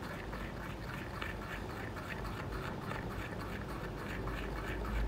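Metal spoon stirring chickpea-flour batter in a glass bowl, scraping through the wet paste in quick, regular strokes about three or four a second.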